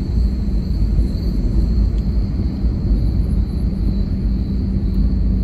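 Car driving steadily along a paved road, heard from inside the cabin: a constant low rumble of tyres and engine, with a faint steady high-pitched tone above it.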